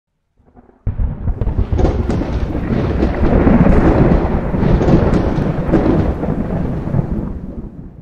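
Intro sound effect: a deep, thunder-like rumble that comes in suddenly about a second in and fades away near the end.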